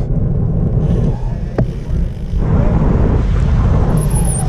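Wind buffeting the microphone: a loud, steady low rumble, with one sharp click about one and a half seconds in.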